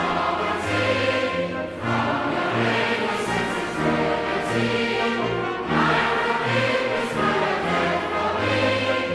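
Music: a choir singing held notes with orchestral accompaniment.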